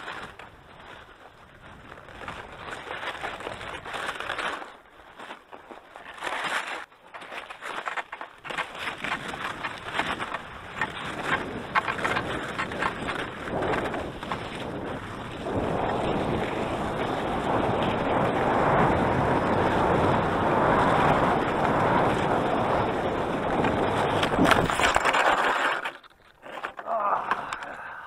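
Cross-country skis sliding and scraping over a packed snow track, choppy at first, then a louder steady rush for about ten seconds as speed picks up, falling away near the end as the skier slows.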